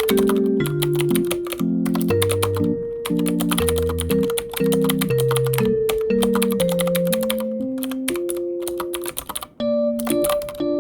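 Fast typing on a computer keyboard, a dense run of key clicks with a brief pause near the end, over background music with a slow, gentle melody.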